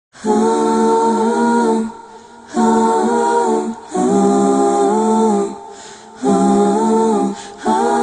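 Unaccompanied voices singing a cappella in held chords, phrase by phrase, with short breaks between phrases.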